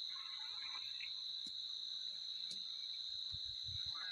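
Crickets trilling in one steady, unbroken high-pitched tone.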